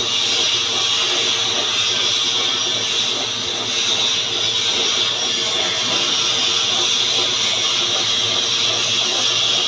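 Manual metal lathe running steadily: a constant hiss over a low motor hum.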